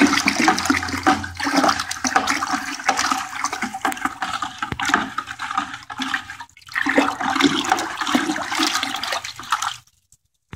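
Water sloshing and swirling in a plastic bucket as a hand stirs washing soda into it. There is a brief break about two-thirds through, and the sound stops abruptly shortly before the end.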